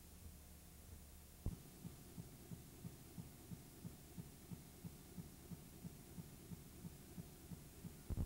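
Dropped-out audio track of an old VHS recording: a faint low hum with a steady low ticking, about three ticks a second, that starts about a second and a half in. A louder pop and thump comes near the end, as the tape glitches at an edit.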